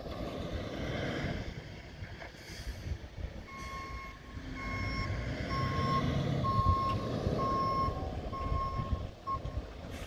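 Snowplow truck's backup alarm beeping, about one beep a second, starting some three and a half seconds in, over a low rumble.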